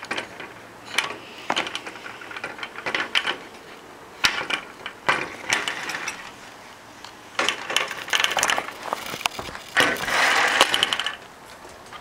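Irregular bursts of crackling clicks and rustling from objects being handled close to the microphone, with the densest and loudest burst about ten seconds in.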